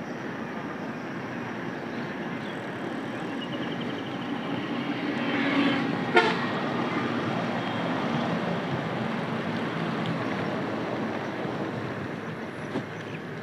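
Steady noise of traffic on a wet highway, swelling as a vehicle passes, with a short vehicle horn blast about six seconds in, the loudest sound.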